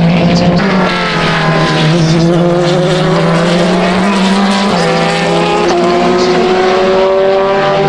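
Race car engine at full throttle, accelerating hard: its pitch climbs through a gear, drops sharply at an upshift about five seconds in, then climbs again.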